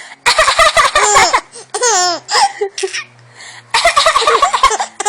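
A baby's coughing laughs: three bouts of laughter, each a quick run of short, rising-and-falling bursts.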